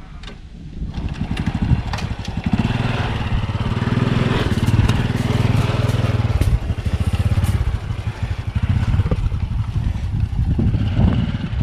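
Small motorbike engine running. It grows louder from about two seconds in as it comes close, stays loud for several seconds, then eases off somewhat.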